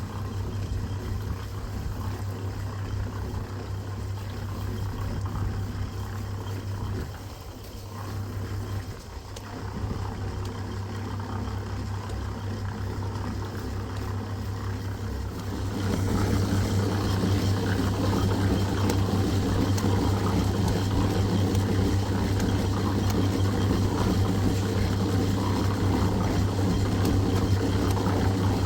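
A motor or engine running steadily with a low hum, growing louder a little past halfway.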